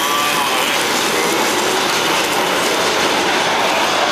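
Model train running on its layout track, a steady rolling rumble of wheels on rail as the locomotive and cars pass close by.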